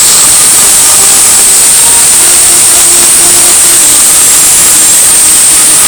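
Continuous, very loud noise like static from audio boosted into heavy distortion, with a few faint held tones underneath.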